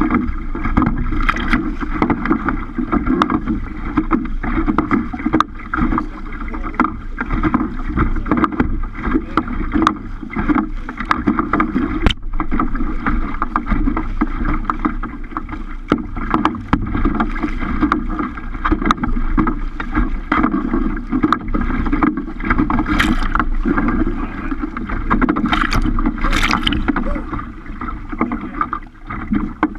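Water splashing and slapping against a kayak's bow as it cuts through choppy waves, in a constant run of irregular splashes. Wind rumbles on the microphone underneath.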